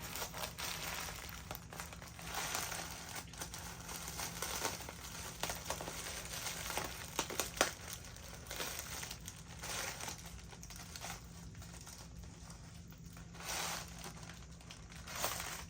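Packing paper crinkling and rustling as it is handled and pulled off a new wig, with sharp crackles throughout and a burst of louder snaps about halfway through.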